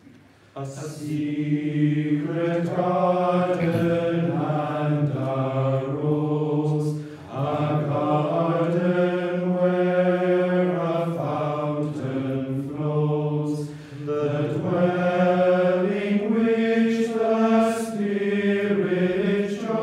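Men's choir singing a slow chant in long held notes, starting about half a second in, with short pauses between phrases about seven and fourteen seconds in.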